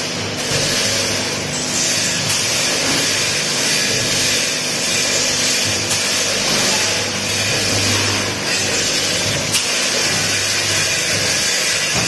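Multihead weigher and vertical form-fill-seal bagging machine running as it packs screws: a steady mechanical hum with a hiss over it, and a few sharp clicks.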